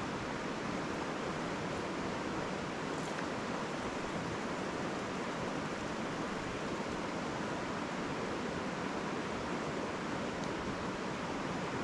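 Mountain river flowing: a steady, even rushing of water.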